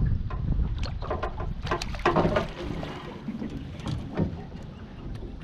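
Wind rumbling on the microphone, with scattered short knocks and rustles of handling.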